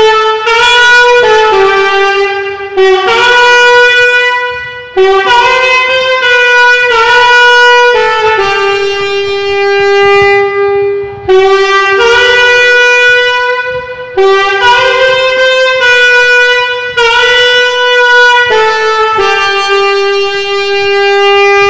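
Solo alto saxophone playing a slow worship-song melody in phrases of held notes, with short breaks between phrases, ending on a long held note.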